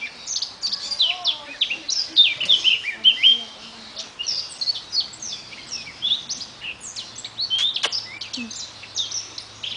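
Small monkeys chirping and twittering: many rapid, high-pitched calls, most falling in pitch, overlapping without a break.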